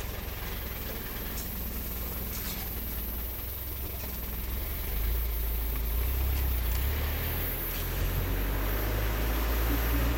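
Open safari vehicle's engine running with a steady low rumble, getting louder about halfway through as the vehicle moves off.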